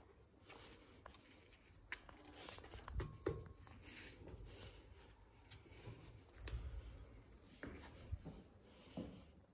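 Faint footsteps and scuffs on a hard floor, with scattered light clicks and a few soft thumps.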